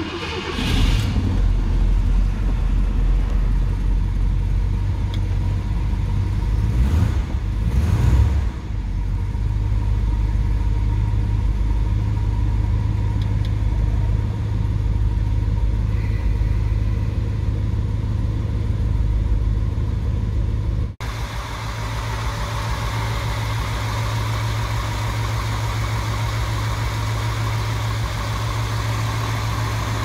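A 1964 Ford Thunderbird's 6.4-litre V8 starting up right at the start and settling into a steady idle, revved briefly twice around seven and eight seconds in. About two-thirds of the way through the sound changes abruptly to the same engine idling heard from the open engine bay, with more hiss and clatter over the low drone.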